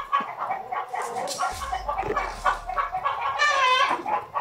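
Chickens clucking: a run of short calls, the loudest a little before the end.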